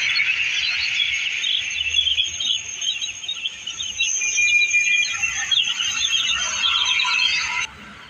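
Flock of young broiler chicks peeping all at once, a dense chorus of many overlapping high chirps. It cuts off suddenly just before the end.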